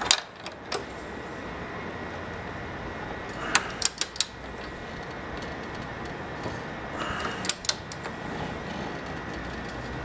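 Torque wrench on a 17 mm socket tightening a scooter's front axle nut toward 40 foot-pounds, clicking in short groups as it is worked. There are a couple of clicks at the start, a quick run of about four clicks around four seconds in, and another few around seven seconds in.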